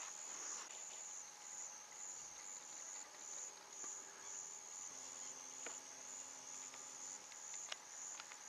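Faint, steady, high-pitched chorus of insects, slightly pulsing, with a couple of soft clicks in the second half.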